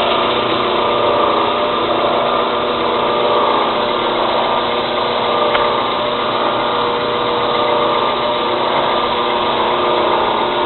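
Knife-making belt grinder running steadily, its motor and sanding belt making a constant machine sound. The belt is wobbling back and forth about a quarter-inch as it runs.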